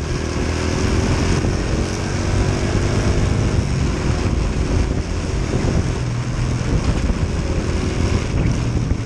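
Honda Wave 100 motorcycle riding through traffic: its small single-cylinder engine running steadily under heavy wind noise on the handlebar camera's microphone.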